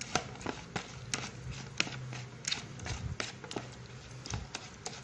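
White plastic spatula stirring a wet ground-beef paste in a plastic bowl: irregular soft taps, scrapes and squelches as it works the mixture until even.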